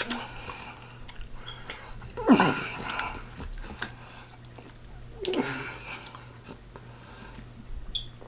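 Close-miked chewing and mouth smacking on pig feet, with many small clicks. Two louder sounds come about two and five seconds in, each dropping in pitch.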